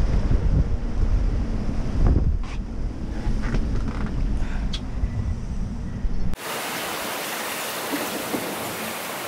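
Strong wind buffeting the microphone with a low rumble, over the rush of breaking waves around a sailing yacht in heavy weather. About six seconds in it cuts abruptly to a steady, even hiss of wind and water.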